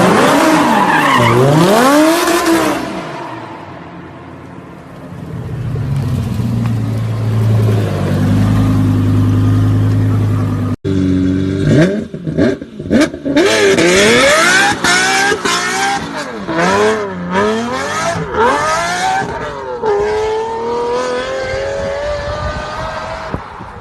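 Lamborghini engine revving hard, its pitch climbing and falling sharply several times, then holding a low steady note for a few seconds. After an abrupt cut, another run of quick rises and drops in pitch ends in one long, steadily climbing pull.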